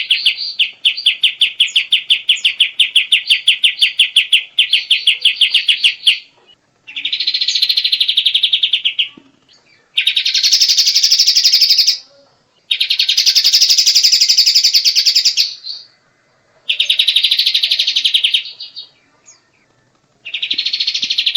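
Kapas tembak songbird singing: a long run of quick, evenly repeated notes, about ten a second, for the first six seconds, then a string of dense trills of two to three seconds each, broken by short pauses.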